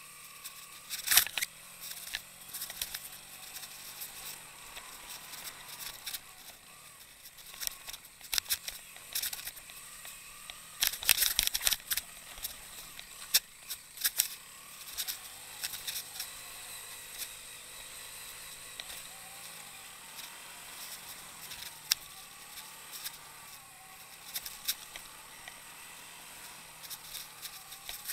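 Motorcycle engine running faintly under frequent clicks, knocks and rattles as the bike jolts over a rough dirt and gravel track, with the loudest cluster of knocks about eleven seconds in.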